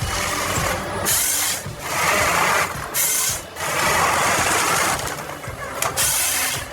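Timber harvester working at the head, its machine noise coming in uneven bursts about a second long with short dips between them.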